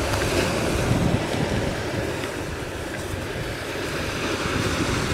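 Ocean surf washing in, with wind buffeting the microphone in a steady rushing noise.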